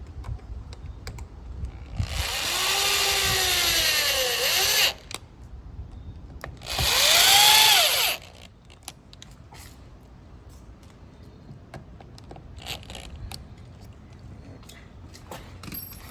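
Power drill running in two bursts, the first about three seconds long and the second about a second and a half, its pitch dipping and rising within each. A few light knocks and clicks come between and after.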